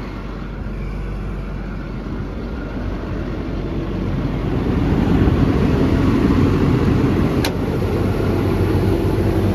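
Cummins diesel engine of an XCMG XE210CU track excavator running steadily, growing louder about halfway through, with a single sharp click near the end.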